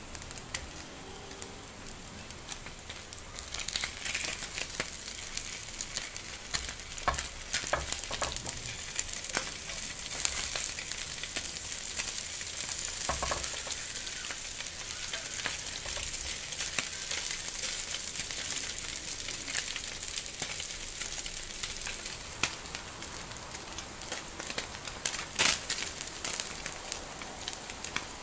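Slices of Spam sizzling and crackling in a hot nonstick frying pan, a steady hiss of small pops that grows louder about four seconds in. A few sharp clicks stand out, the loudest near the end.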